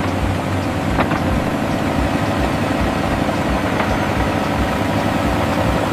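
Bulldozer engine running steadily with a low, even throb.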